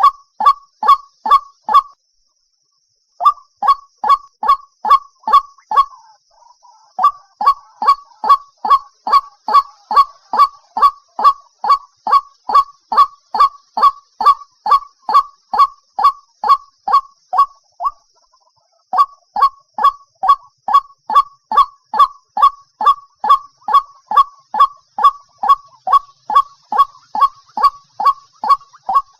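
White-breasted waterhen (dahuk) call: a long series of short, harsh honking notes repeated about two to three times a second, broken by two brief pauses.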